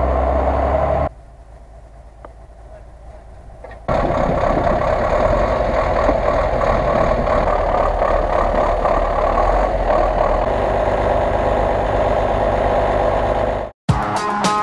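GAZ-66 truck engine running loud and steady, in edited clips: a quieter, more distant stretch between about one and four seconds in, then the loud running resumes. Near the end it cuts off abruptly and a run of sharp clicks follows.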